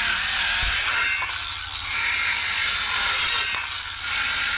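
Steady mechanical rattling that eases off briefly twice, once a little after a second in and again near the end.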